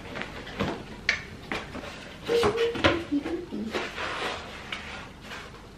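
Cardboard box and packaging being handled while a projector is unpacked: flaps rustling and scraping, with scattered knocks. The busiest, loudest handling comes about halfway through.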